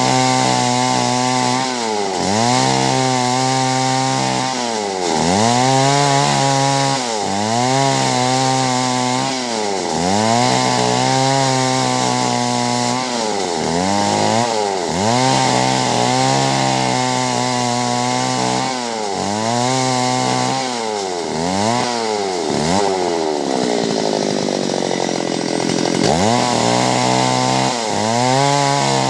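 Chainsaw cutting clove wood, its engine speed dropping and climbing back again and again, about every one and a half seconds, with one longer dip to a lower speed about three-quarters of the way through.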